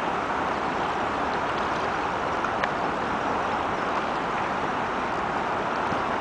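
Steady rushing of flooded river water.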